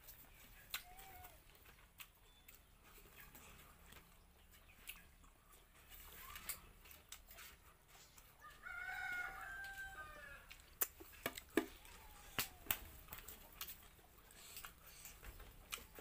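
A rooster crows once about halfway through, a single call of about two seconds. Soon after it comes a run of sharp clicks, the loudest sounds here.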